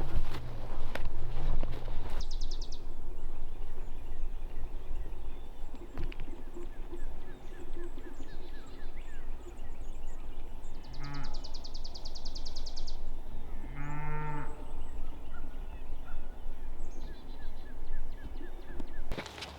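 A cow mooing twice, a short low call and then a longer one about three seconds later, with birds trilling and chirping around it.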